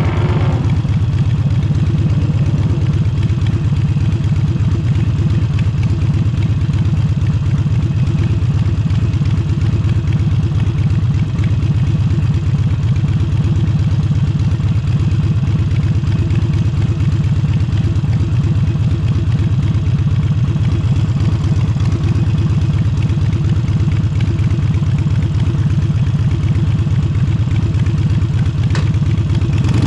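Harley-Davidson Forty-Eight's air-cooled V-twin running at a steady, unchanging speed through an aftermarket Vance & Hines exhaust, its low exhaust note loud and even.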